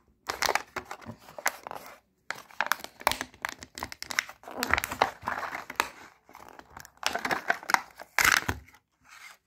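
Plastic blister packaging of a Hot Wheels die-cast car crinkling and tearing as it is pulled off its card by hand. It comes in irregular bursts with short pauses, and the loudest is near the end.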